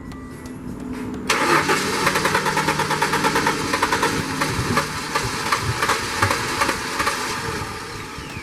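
A 1994–98 Ford Mustang's starter cranks the engine about a second in, with rapid, even pulses, then winds down with a falling whine near the end. The engine does not catch: a crank-but-no-start that the owner ties to the anti-theft light that keeps coming on.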